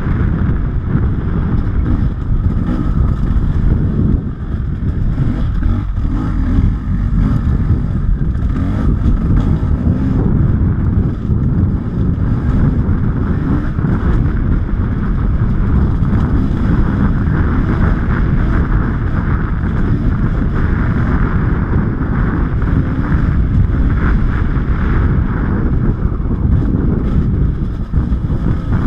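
Enduro dirt bike engine running while riding, mixed with wind buffeting on the onboard microphone.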